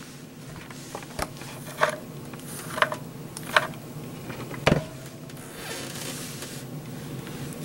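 About six light clicks and taps of small things being handled, scattered through the first five seconds with the last one the loudest, over a steady low hum.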